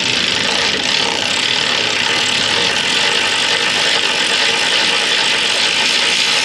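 Air ratchet with a swivel socket running steadily, spinning a broken exhaust manifold bolt out of a 5.7 Hemi's cylinder head by a nut welded onto it.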